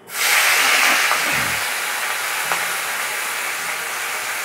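Chopped onions and green chillies hitting hot mustard oil in a steel wok: a sudden loud sizzle that settles into a steady sizzle, with a couple of faint clicks.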